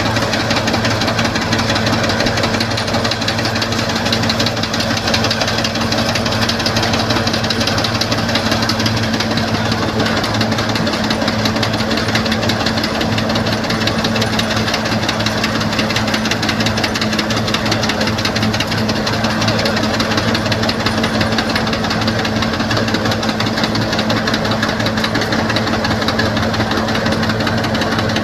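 Wheat thresher and the engine driving it running steadily: a constant dense mechanical noise over a steady low hum, with no change in pace.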